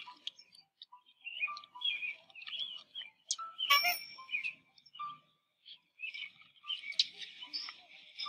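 Birds chirping in quick short calls over light background music, with a sharp ding-like click about four seconds in.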